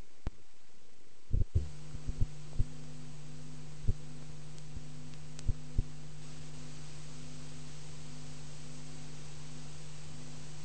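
Steady low electrical hum with hiss, and a fainter pulsing tone above it, comes in about a second and a half in after a few sharp clicks. Several more clicks and knocks follow over the next few seconds.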